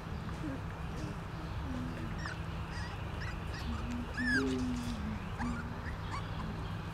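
Young puppies playing, with short low growly calls and scattered high squeaks, the loudest squeak about four seconds in, over a steady low rumble.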